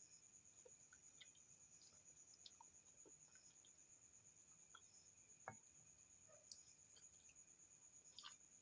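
Very faint eating sounds: scattered soft mouth clicks while chewing fish stew and ugali, with a sharper click about five and a half seconds in and a small cluster of clicks near the end. A steady high pulsing chirr, about three to four pulses a second, runs underneath.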